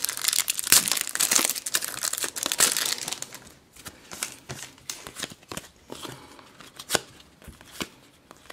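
Foil wrapper of a Panini Adrenalyn XL trading-card pack being torn open and crinkled for about three seconds, then quieter scattered clicks and rustles as the glossy cards are pulled out and flicked through.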